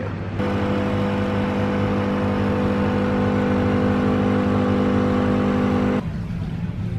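Espresso machine running as it pours a shot through a double spout: a steady pitched hum that starts suddenly about half a second in and cuts off about a second before the end, over a low steady background hum.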